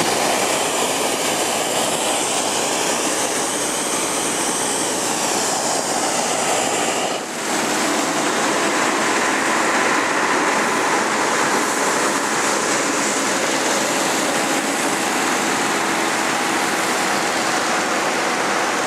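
Hot-air balloon's propane burner firing overhead, a loud steady rushing noise that dips briefly about seven seconds in.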